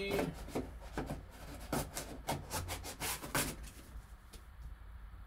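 Cardboard trading-card boxes being handled, a quick run of scrapes and taps as the box lids are slid and set down, dying away about three and a half seconds in.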